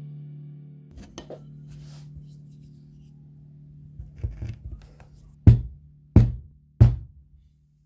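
Soft background music with a held low note, over which come a few light taps and then three hard knocks about two-thirds of a second apart: the binding holes being punched through the book.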